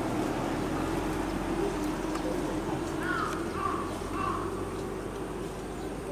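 A crow cawing three short times in quick succession, about three seconds in, over a steady low background murmur.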